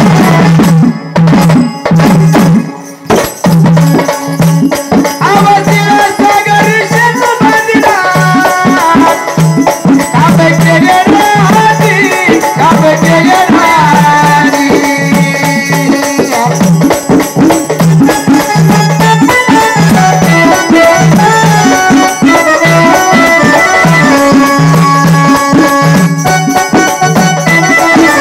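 Traditional Marathi jagran-gondhal folk music: a steady, repeating drum beat with fast percussion strokes over it, and a melodic line that slides up and down in pitch.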